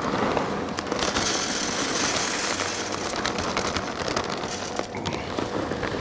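Post oak wood pellets pouring from a bag into a Pit Boss pellet grill's hopper: a dense, steady rattle of many small hard pellets, loudest about one to three seconds in.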